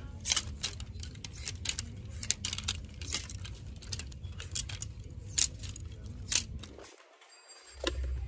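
Clothes hangers clicking and clacking against a metal clothing rack as garments are slid along it, about a dozen sharp irregular clacks over a low steady hum.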